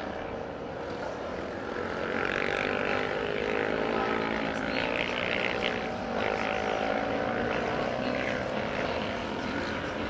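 Racing motorcycle engines heard from a distance, their pitch climbing and falling as the riders accelerate and back off through the turns, with several engines overlapping.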